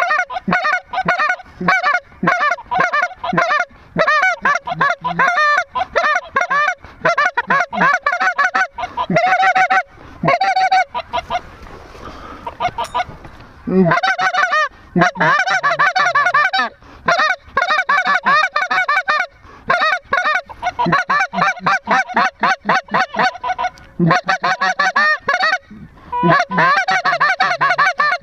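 Goose calls blown hard by hunters: fast, overlapping clucks and honks, several a second, with a break of about two seconds just before halfway. The loud, nonstop calling is meant to draw lesser geese down to a big decoy spread.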